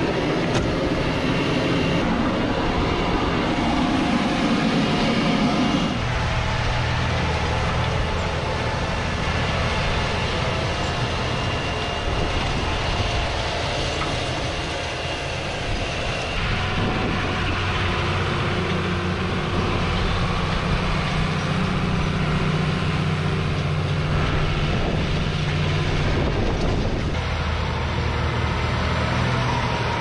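John Deere 8270R tractor's diesel engine running steadily under load while pulling a Claydon seed drill through the soil. A rougher rushing noise fills the first few seconds, then gives way to a steady engine drone.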